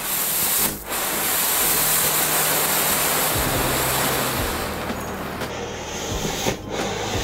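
Homemade anar (flower-pot fountain firework), packed with a mix of firework powders, burning with a steady loud hiss as it sprays sparks. The hiss drops out briefly twice, near the first second and near the end.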